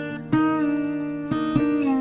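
Instrumental intro of a song: acoustic guitar picking sustained notes, a new note struck about a third of a second in and two more near the end.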